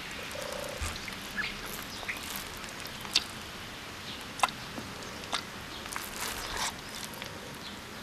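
Frogs croaking: a short buzzy croak under a second in and fainter ones later. Scattered short clicks and chirps sound over a steady low hiss.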